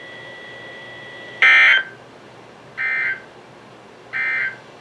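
Three short warbling data bursts from a NOAA weather radio's speaker, about a second and a half apart, over a steady hiss. They are the Emergency Alert System (SAME) end-of-message tones that close a broadcast warning.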